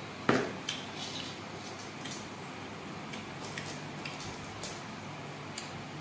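A metal two-handled wok set down on a table with one sharp knock just after the start, then scattered light clicks and scrapes as fingers pick through the fried sparrows in the pan.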